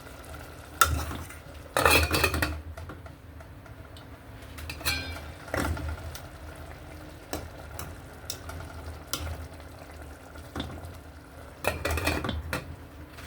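A metal spoon clinking and scraping against a cooking pot in a series of separate knocks, busiest about two seconds in and again near the end.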